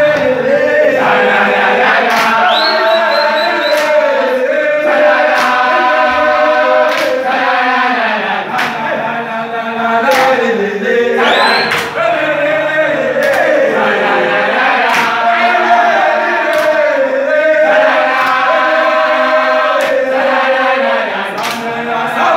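A group of male footballers singing a team chant together in harmony, with sharp beats about once a second. A high rising call cuts over the singing twice.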